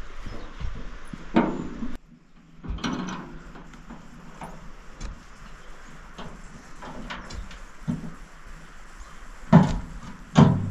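A few scattered knocks and thumps, the two loudest close together near the end.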